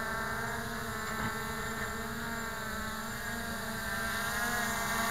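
MJX Bugs 3 quadcopter's brushless motors and propellers whining steadily as it hovers low, coming in to land, growing a little louder near the end.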